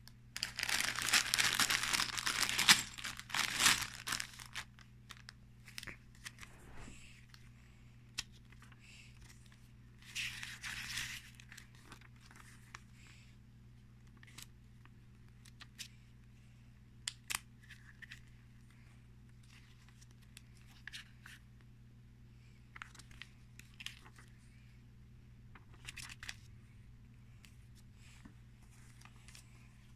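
Plastic parts bags and paper instruction booklets handled: loud crinkling and rustling for the first few seconds, another burst a little after ten seconds, then scattered soft rustles, page turns and small clicks.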